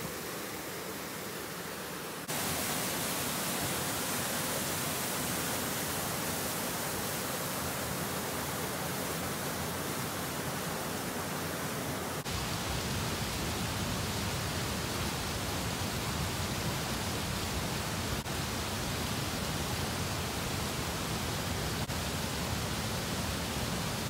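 Steady rushing noise of falling water from a waterfall. It turns abruptly louder about two seconds in, and changes abruptly again about halfway, when it gains more low rumble.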